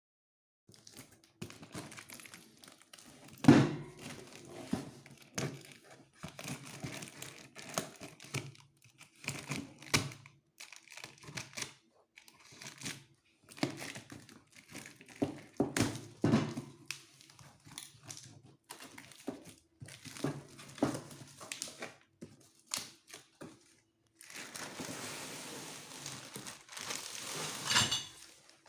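Packaging of a flat-packed metal kitchen rack being handled and opened: plastic wrap and cardboard crinkling in irregular handfuls, with knocks and thumps, the loudest about three and a half seconds in. Near the end comes a longer, steadier rustle of about four seconds.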